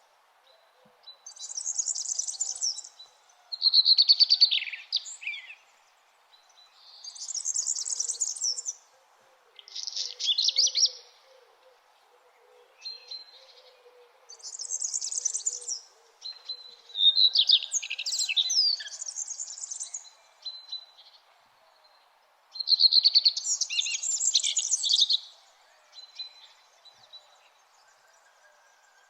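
Songbirds singing at dawn in high, chirping phrases about one to two seconds long, repeated with short pauses between them, over a faint steady background hum.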